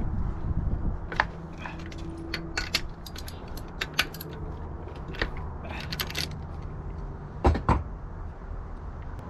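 Scattered metallic clicks and clinks of a spark plug tool against an outboard motor's engine as a spark plug is worked loose, the loudest two close together near the end, over a low steady rumble.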